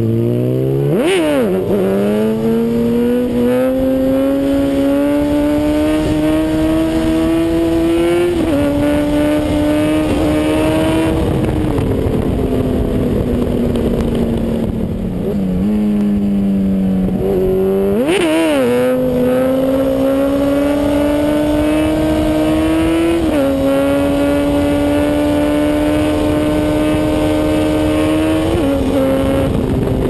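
2004 Honda CBR1000RR's inline-four engine through a Micron full exhaust line, heard from on board. It revs up sharply about a second in and pulls through the gears, the pitch climbing and dropping briefly at each upshift. It eases off in the middle, then revs up sharply again just past halfway and pulls through two more upshifts.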